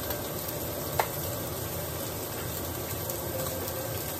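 Ribeye steak sizzling as it sears in a hot stainless steel pan, with one sharp clink about a second in.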